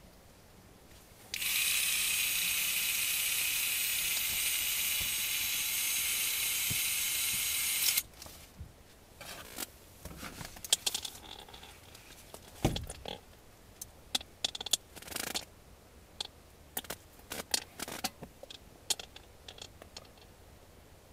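A small electric motor whines steadily for about seven seconds, starting and stopping abruptly. After it come scattered light clicks and knocks of handling.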